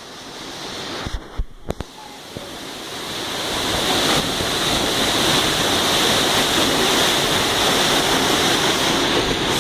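Waterfall, a steady rush of falling water that grows louder over the first few seconds, then holds steady.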